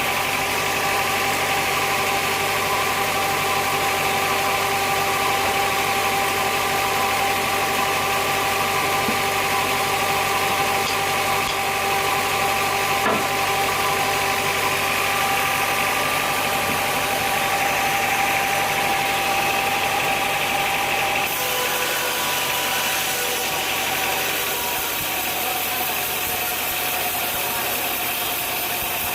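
Sawmill machinery running steadily: a motor's hum with several steady tones over a noisy wash. About three-quarters of the way through, the tone and the low end change abruptly.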